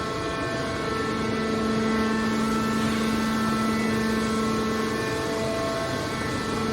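Hydraulic metal scrap baler running: a steady mechanical hum with a constant tone.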